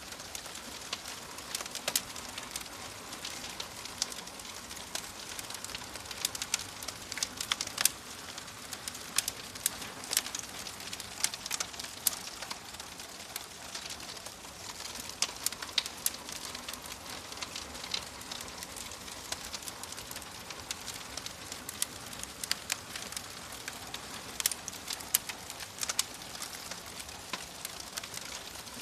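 Wood fire crackling in a fireplace: a steady hiss of burning with frequent sharp, irregular pops and snaps.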